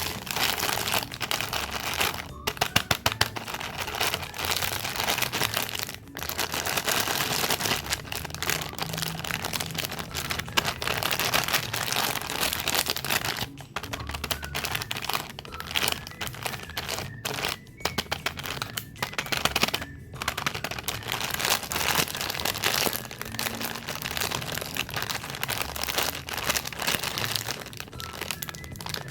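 Close-miked crunching and chewing of crunchy cookies and cakes: a dense run of crackling crunches, broken by a few brief pauses.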